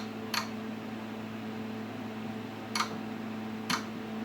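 Oscilloscope front-panel keys clicking four times: two quick presses at the start and two more about three seconds in. Under them runs the steady hum of the powered-up HP 54542A.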